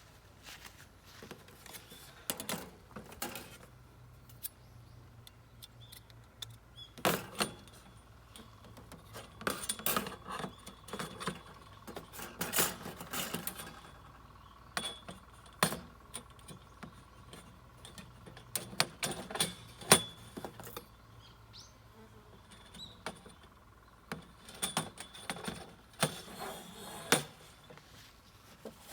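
Metal fire-pit parts clinking and knocking together as they are handled and fitted, in irregular clusters of sharp clacks and rattles.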